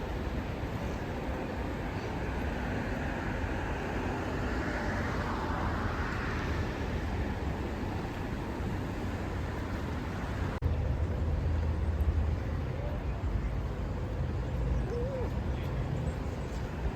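Steady road traffic noise, a low rumble with a rushing swell about five seconds in. The sound changes abruptly about ten and a half seconds in, becoming louder and heavier in the low rumble.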